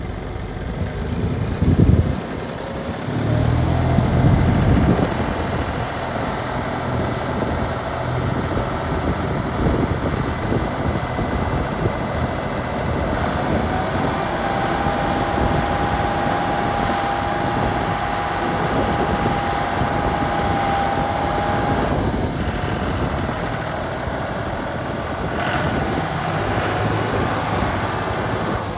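John Deere 5065E tractor's three-cylinder diesel engine running, with a couple of revs in the first few seconds, while the front loader is raised and lowered. A steady high whine holds for several seconds in the middle.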